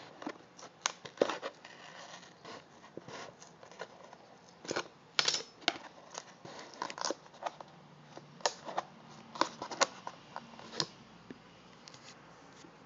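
A small package being cut and torn open by hand: irregular sharp clicks, scratches and crinkling of the packaging, with a cluster of louder snaps about five seconds in.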